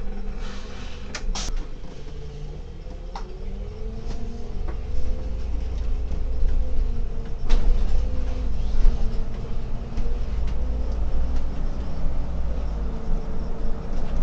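Solaris Urbino 18 articulated city bus pulling away from a stop, heard from the driver's cab. A few sharp clicks come about a second in, then the drivetrain hum rises in pitch and grows louder as the bus picks up speed, over a steady low rumble.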